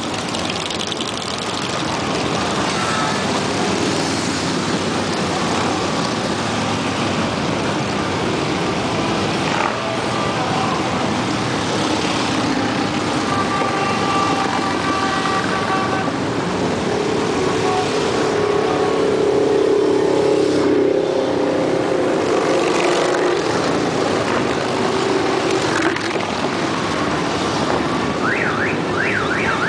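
A stream of Harley-Davidson V-twin motorcycles running past in a parade, engines blending into a dense, loud rumble, with several horn toots held for a second or two. A warbling, siren-like tone starts near the end.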